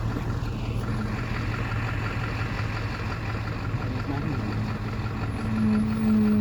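Vehicle creeping slowly downhill, its engine running at a steady low hum. A stronger pitched drone joins about five and a half seconds in.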